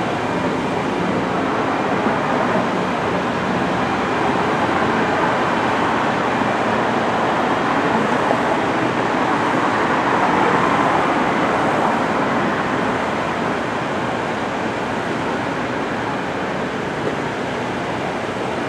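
Steady rumbling running noise of a moving vehicle, swelling a little about halfway through.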